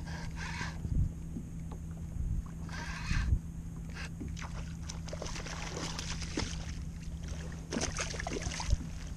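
Hooked porgy splashing and thrashing at the surface beside a kayak as it is brought in, a busy patter of small splashes through the second half. Before that, two short rushes of noise, over a steady low hum.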